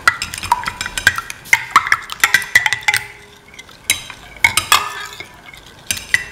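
Metal spoon stirring a runny egg-and-milk mixture in a bowl, clinking and scraping against the bowl in quick, irregular strokes, some strikes ringing briefly.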